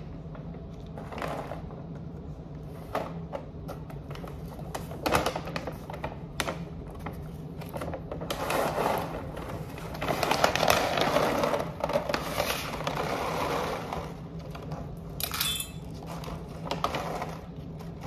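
A plastic bag of IAMS dry cat food crinkling and rustling as it is handled, loudest for several seconds in the middle, with scattered light clicks and knocks.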